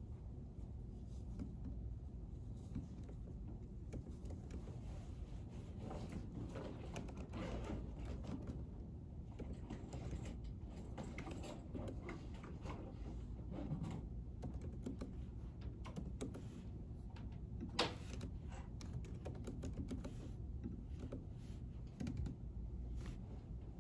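Typing on a computer keyboard: an irregular run of soft key clicks over a steady low hum, with one sharper, louder click about three-quarters of the way through.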